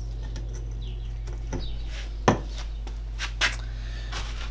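A few short clicks and clinks as small metal engine parts, a valve and the grinding-paste tin, are handled on the bench, the sharpest about two seconds in, over a steady low hum.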